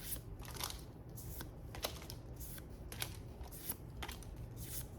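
Metazoo trading cards being flipped through one at a time by hand, a crisp slide and flick of card stock about twice a second.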